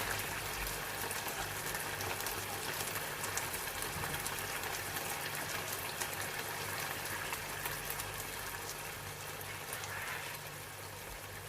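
Food sizzling and bubbling in a pan on the stove: a steady fine crackle over a low steady hum, easing slightly near the end.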